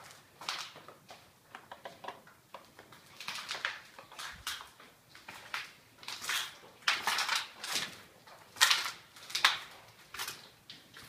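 Footsteps on a gritty, debris-strewn concrete floor, an uneven step every half second to a second.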